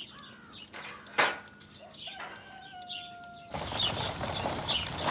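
Birds chirping, with a short flurry like wings flapping about a second in and a held, slightly falling call in the middle. About three and a half seconds in, the background noise rises sharply.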